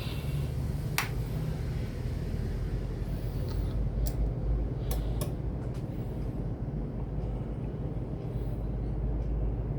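Steady low electrical hum from the power amplifier and variac running just after start-up, with a few sharp clicks in the first half.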